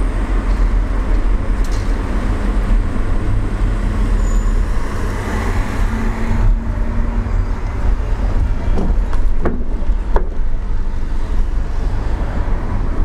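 Car engine and tyre road noise heard from inside the cabin while driving, a steady low rumble. Two short clicks come about ten seconds in.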